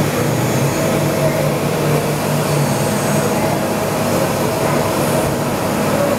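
Mazak Integrex i-200ST multi-axis turning and milling center milling a part under flood coolant: a steady machine hum mixed with the hiss of coolant spray.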